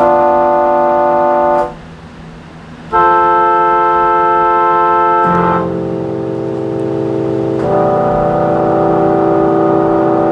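Keyboard playing sustained organ-sounding chords. A loud chord is held for about a second and a half over a low held note, a new chord comes in about three seconds in, and it changes twice more as it keeps sounding.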